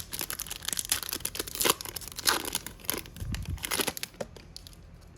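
The wrapper of a hockey trading card pack being torn open and crinkled, a dense crackling rustle that dies away about four seconds in, leaving a few faint ticks.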